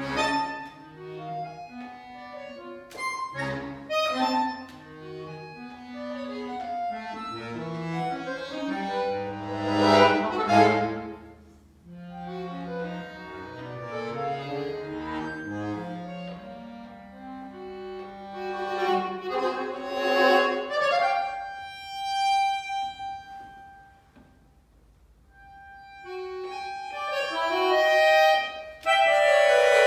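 Solo accordion playing a contemporary concert piece: held and shifting notes and chords swell to a loud peak about ten seconds in. Later the sound thins to single sustained tones and drops almost to silence a little past two-thirds through, then builds again to loud, dense chords near the end.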